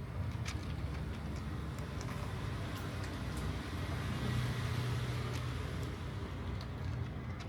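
Steady low rumble of road traffic, swelling about halfway through as a vehicle goes by.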